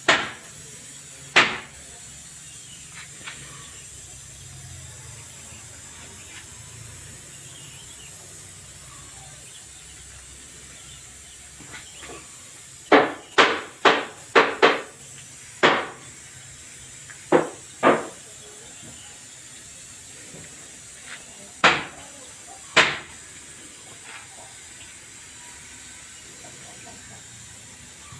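Sharp, short knocks or taps at irregular times, with a quick run of five or six about halfway through and single ones here and there, over a steady background hiss.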